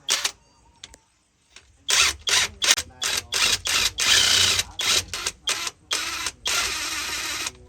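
Compressed air released in a string of short hissing bursts, then two longer blasts near the end.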